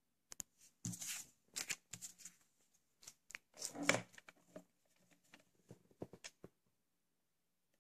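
Hands handling a paper card and a plastic VHS cassette on a table: a run of rustles, slides and light clicks, loudest about four seconds in as the cassette is picked up, stopping shortly before the end.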